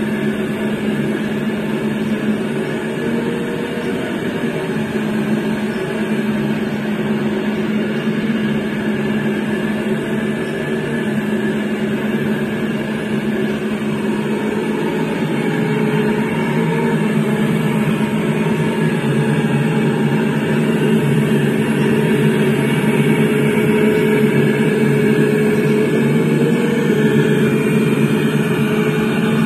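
Hydraulic pumps and cooling fans of a 1/20-scale Liebherr hydraulic RC excavator running, a steady electric whine and drone as the boom and bucket work, growing a little louder in the second half.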